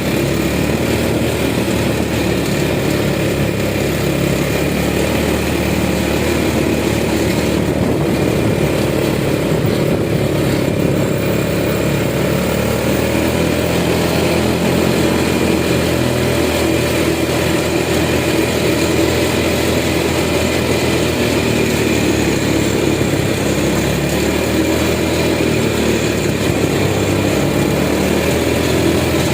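A small engine running steadily under load, its pitch rising slightly about halfway through.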